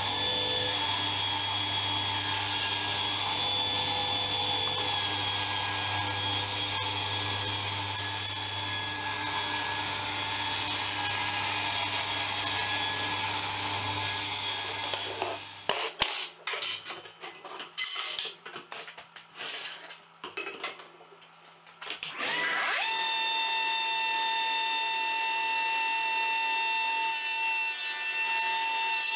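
Powermatic table saw running and ripping through a rough wooden slab. Its blade noise over a steady motor hum stops about halfway through. A few scattered knocks follow, then another shop machine spins up with a rising whine and runs steadily.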